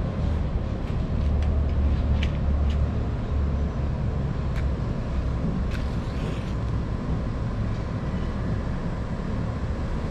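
Steady low outdoor rumble with a few short sharp clicks, one about six seconds in followed by a brief hiss as a cigarette lighter is struck.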